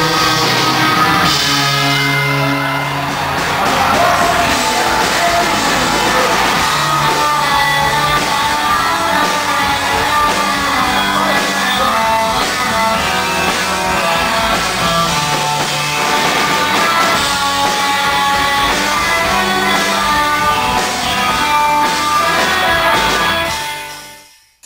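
Rock band music with singing and electric guitars, fading out near the end.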